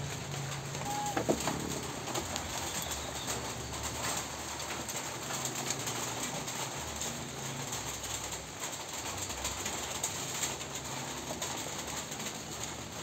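Goat browsing leaves at a bamboo fence: rustling of leaves with scattered light knocks and one sharper knock about a second in.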